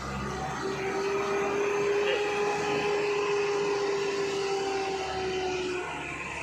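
Truck on the move: steady engine and road noise with a steady whine that starts about half a second in and fades out near the end.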